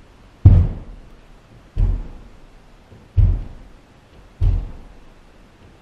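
Heavy impact noise from a man jumping in place on a foam roll mat on the floor above, heard through the ceiling of the wooden building below. Four deep thuds about 1.3 seconds apart, each dying away quickly.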